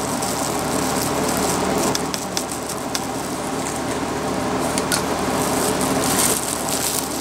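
Steady low hum, with a few light ticks of a stick stirring resin and hardener in a disposable plastic cup.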